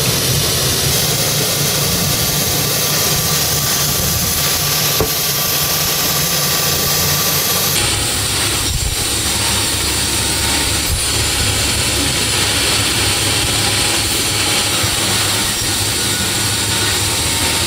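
Industrial sawmill machinery running with a loud, steady mechanical noise and a low hum. The sound changes abruptly about a second in and again about eight seconds in.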